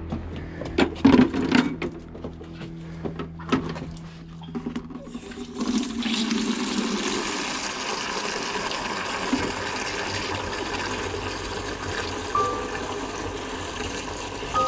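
Knocks and clatter as a plastic bucket is handled and set down on a wooden deck, then water from a hose running steadily into the bucket, filling it, from about five and a half seconds in.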